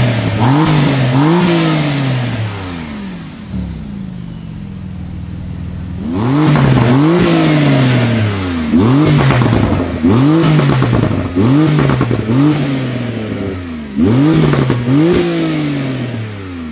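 Porsche 991 GT2 RS's twin-turbo 3.8-litre flat-six blipped repeatedly while standing still, each rev climbing quickly and dropping straight back. Two quick revs come first, then a few seconds of idle, then a string of about eight more revs.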